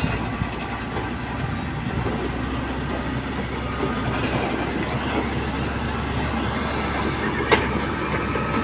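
Heavy construction machinery running steadily, with rattling, and one sharp knock about seven and a half seconds in.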